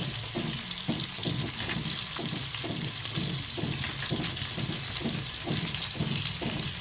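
Chicken leg pieces frying in hot oil: a steady sizzling hiss with low bubbling pops several times a second.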